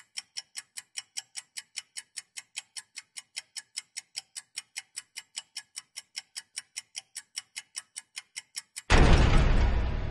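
Fast, even clock-like ticking sound effect, about five ticks a second, marking a counting year display. About nine seconds in it gives way to a sudden loud, deep boom that fades slowly.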